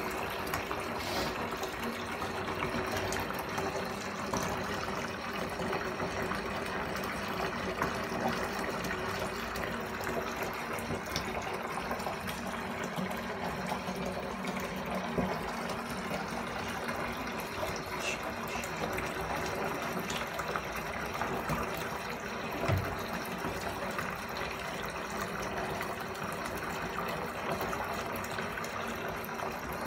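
Water running steadily into a bathtub, a continuous rushing splash as the bath fills.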